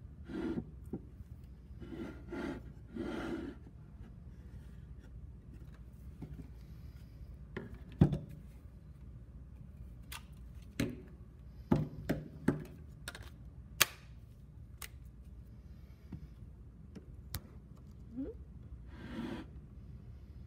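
A wooden board being handled on a wooden workbench: hands rubbing and sliding it, with scattered light knocks and clicks and one sharp knock about eight seconds in.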